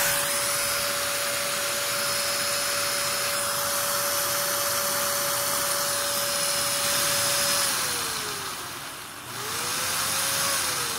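Vacuum motor running, with a steady whine over rushing air drawn through a hose into a homemade Lego build. About eight seconds in, the whine falls in pitch and the sound fades, then it climbs back up to speed about a second later.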